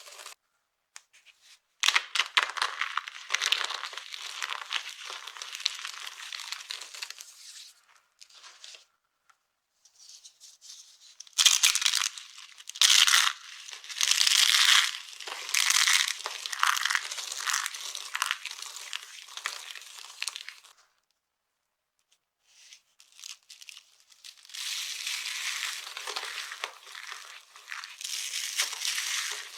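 Dry soap being crushed and crumbled, a crisp crunching and crackling that comes in several bouts with short pauses between them, the sharpest bursts in the middle.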